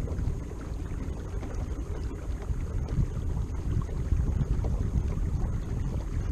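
Wind buffeting the microphone with an uneven, gusty low rumble, over water sounds of a kayak under way.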